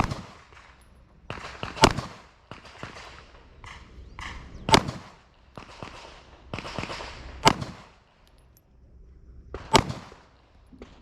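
Pistol shots fired one at a time at a practical-shooting stage, about five loud cracks two to three seconds apart, with quieter shuffling and movement noise between them.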